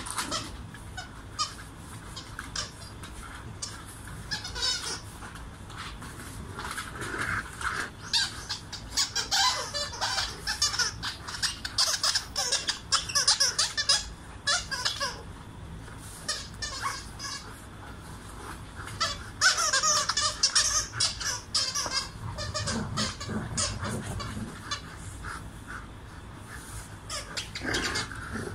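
A rubber squeaky dog toy squeaking in repeated bursts as dogs mouth and tug at it.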